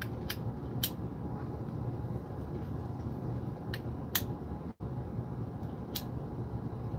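Steady low room hum with a handful of short, sharp clicks, as of small objects being handled, and a momentary gap in the audio just past the middle.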